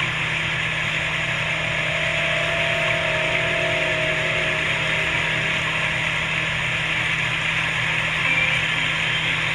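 Steady rush of fast-flowing stream water among rocks below a waterfall, with a faint steady low hum underneath.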